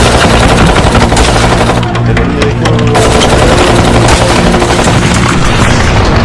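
Loud music with a driving bass line and dense, rapid percussive hits, like a heavy track that may carry gunfire sound effects.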